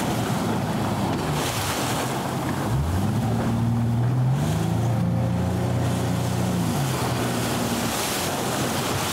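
Single outboard motor running under way, its pitch dipping briefly a little under three seconds in, then rising and holding higher before easing back down near seven seconds. Wind on the microphone and the hiss of the boat's wake run throughout.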